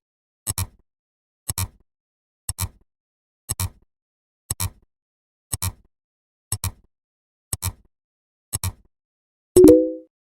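Counting sound effect: a short double click once a second, nine times, then a louder short tone on the tenth beat near the end.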